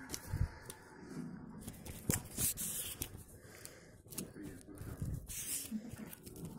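Paper rustling and crinkling as a spiral notebook and loose paper are handled, with scattered light clicks and knocks, and a few louder rustles about two seconds in and again near the end.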